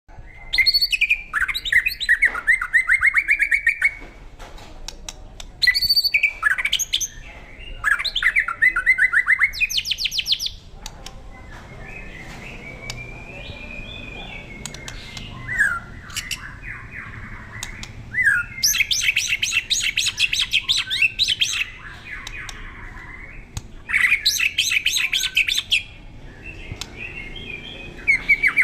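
White-rumped shama (murai batu) singing in loud phrases of fast, repeated notes, each a few seconds long, with quieter calls between them. This is full, sustained song of the kind that bird-keepers take as the sign of a bird ready for competition.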